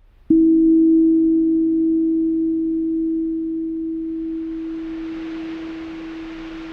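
A single bell-like tone from the background music, struck once about a third of a second in and left ringing as it slowly fades. From about four seconds a steady rushing noise fades in beneath it.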